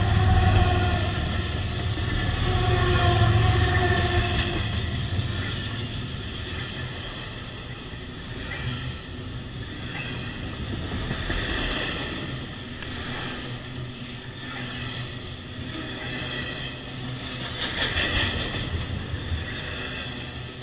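Union Pacific diesel-electric locomotives and a long container train passing: a loud, steady engine drone in the first few seconds, then the continuous rumble and wheel noise of the container cars on the rails, rising in pitch at times.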